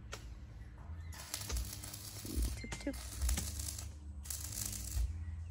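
Wind buffeting the microphone outdoors, an uneven low rumble and hiss with a few faint knocks.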